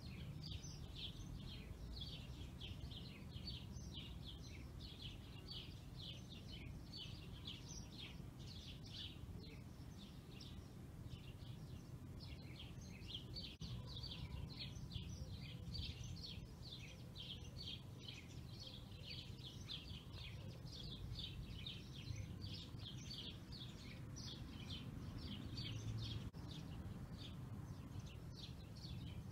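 Faint background ambience: a steady run of short, high chirps, about three to four a second, from a small animal, over a low rumble.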